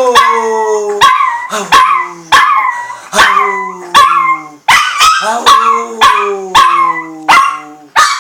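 Chihuahua howling and yelping in a rapid run of short calls, about two a second, each starting sharply and sliding down in pitch.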